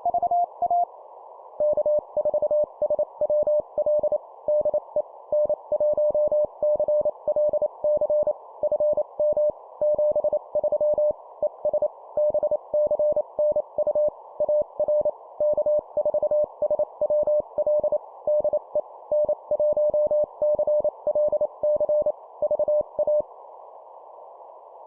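Morse code (CW) at 25 words per minute: a pure beep keyed on and off in dots and dashes over a steady bed of band hiss. The first second ends one station's over on a slightly higher tone; after a short gap the second station, at a lower pitch, sends a long final over, the closing 73 and VA sign-off, and stops about two seconds before the end, leaving only the hiss.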